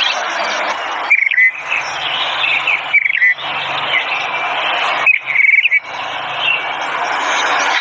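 Songbirds chirping: short, rapid trilled chirps come three times over a dense, steady hiss of background chatter, with a faint low hum underneath.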